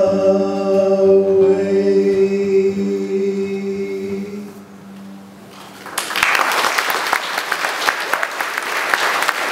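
A song's long held final note, a man singing with acoustic guitar, fading out after about four seconds. Audience applause starts about six seconds in and keeps going.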